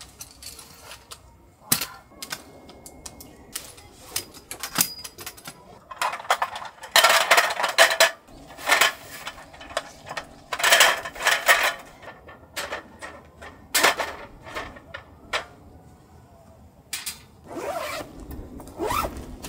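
A folding camp table being unfolded and set up: its metal frame and slatted top clatter and scrape in rattling bursts, with sharp clicks as parts snap into place.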